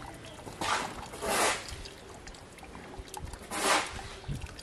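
Dye liquid wrung by hand out of a cloth-wrapped bundle of silk, pouring and splashing onto a woven bamboo basket in two bursts, about a second in and again near four seconds.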